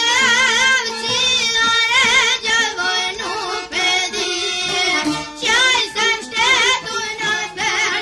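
Albanian folk music: an ornamented melody line with a strong, regular vibrato over accompaniment, with no pause.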